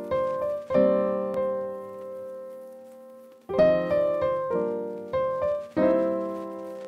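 Background piano music: a few struck chords, then a long chord that dies away, then more chords about halfway through.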